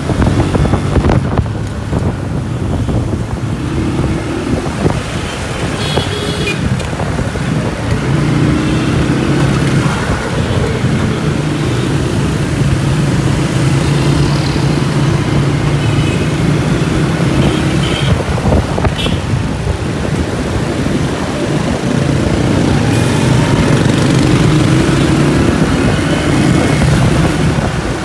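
Honda motorcycle engine running while riding in city traffic, its pitch rising and falling as the rider speeds up and slows; the bike has a newly fitted chain and sprocket set. Other traffic runs close around it.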